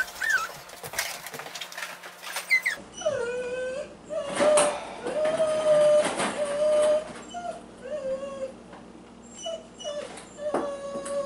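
A dog whining in long, high, wavering whines, with a few sharp clicks of ping pong balls bouncing on hard surfaces.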